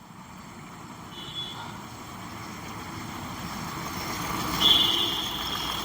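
Volkswagen Polo three-cylinder turbo-diesel engine idling just after starting, its blocked number-2 injector cleaned and refitted. The running grows steadily louder, with a brief high whine about a second in and again near the end.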